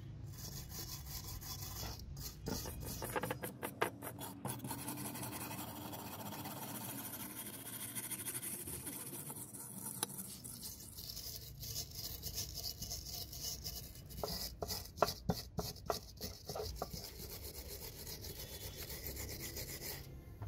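Hand wire brush scrubbing bubbled paint and rust off metal juicer parts: a steady scratchy rasping, with two spells of quick short strokes, about two to four seconds in and again past the middle.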